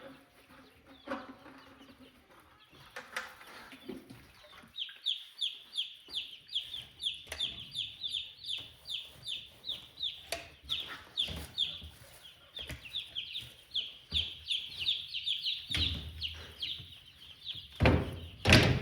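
Cornish Cross broiler chicks peeping continuously: short, high, falling chirps, several a second. A few loud knocks come near the end.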